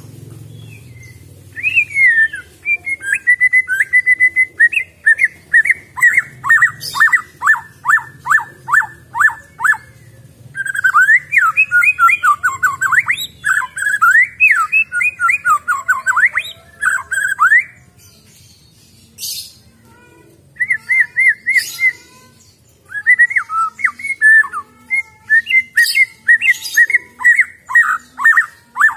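Wild-caught white-rumped shama (murai batu) singing loud phrases of clear whistles that break into fast runs of sharply falling notes. The song starts about two seconds in, pauses briefly twice, and stops for a few seconds about two-thirds of the way through before starting again.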